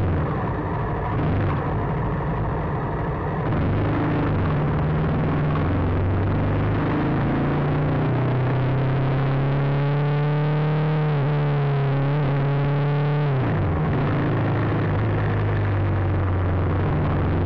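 Motorcycle engine running with a low, steady drone. Its note rises for several seconds as the bike pulls away and accelerates, then drops sharply when the throttle is let off.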